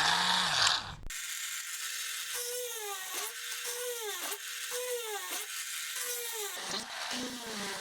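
Small high-speed rotary tool cutting the hole for a steering-wheel horn button. After a brief loud rush of noise, the motor whines steadily, its pitch sagging about once a second as the bit bites and recovering as it eases off, then settling to a lower speed near the end.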